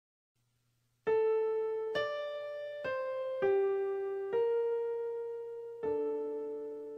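Music: a slow keyboard melody of single struck notes, each ringing and fading away, beginning after about a second of near silence. Six notes in all, the last one left to ring.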